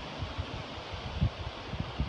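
Husqvarna Automower 330X robotic mower running across the lawn, its blade disc and drive giving a steady quiet whir, with wind buffeting the microphone in irregular low gusts, the strongest about a second and a quarter in.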